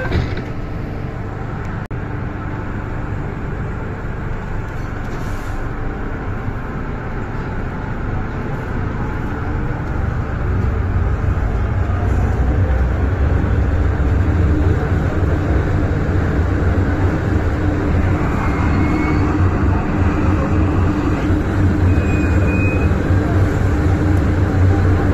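MTR M-train heard from inside the car as it pulls out of a station and accelerates into the tunnel. Its running rumble grows louder about ten seconds in, with a low steady drone over it.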